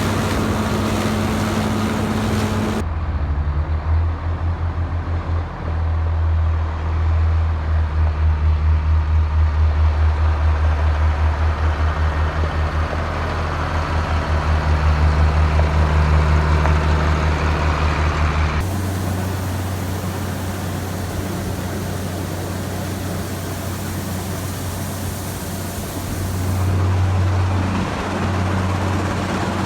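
Heavy farm machinery engines running steadily across several cut-together shots. A deep, steady drone runs throughout, with a strong low pulsing hum in the middle stretch.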